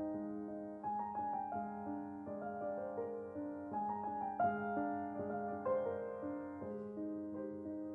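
Gentle background piano music: a slow melody of held notes over a steady lower accompaniment.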